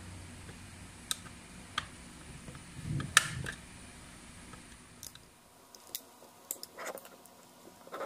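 Plastic clicks and small snaps as a plastic pry tool works along the seam of a 3D hologram fan's plastic blade casing, unclipping it. A handful of scattered clicks, the loudest about three seconds in.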